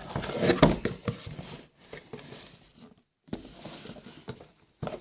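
Paper and cardboard being handled: irregular rustling, rubbing and a few light knocks as the contents of a Magic: The Gathering Deck Builder's Toolkit box are taken out. A brief dead-silent gap falls about three seconds in.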